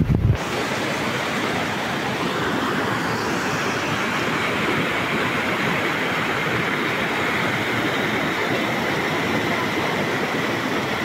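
Steady rush of flowing water, an even hiss with no breaks or rhythm. Wind buffets the microphone for a moment at the very start, then cuts off.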